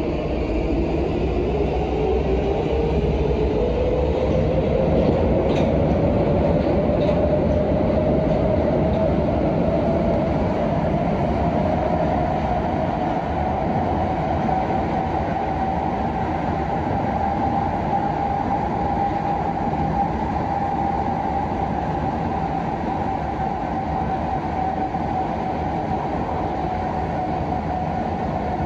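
Prague Metro Line A train accelerating out of a station: the traction motor whine rises steadily in pitch for about twenty seconds, then levels off as the train runs at speed. Underneath is the constant rumble of wheels on rail.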